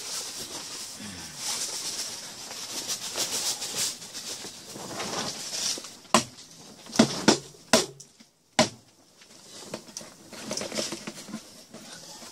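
Mesh sifting bags rustling and scraping as they are handled inside a plastic bucket, followed about halfway through by a few sharp knocks and clicks.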